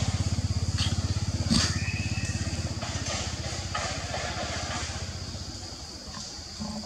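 A small engine, most like a motorcycle, running with a fast low putter that fades away over the last few seconds. A couple of light knocks and a steady high drone sit underneath.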